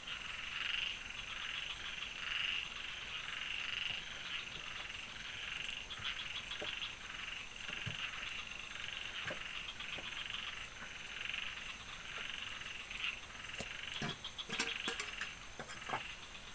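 A dense chorus of frogs croaking, pulsing on and off, over a steady high-pitched hum. A few sharp knocks come near the end.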